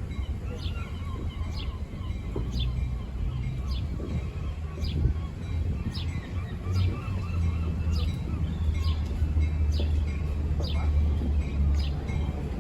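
Approaching train's diesel locomotive giving a steady low rumble, with short high-pitched chirps repeating about once a second over it.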